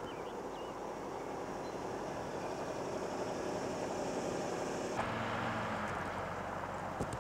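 Steady vehicle and road noise, with a few bird chirps near the start. The noise changes abruptly about five seconds in.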